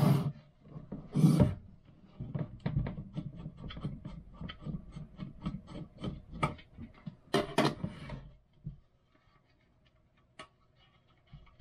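Hands working a cellular modem-router and its paddle antennas on a wooden countertop: a few loud rubbing scrapes and a quick run of small clicks and knocks as the antennas are worked off. It goes quiet from about nine seconds in, apart from one click.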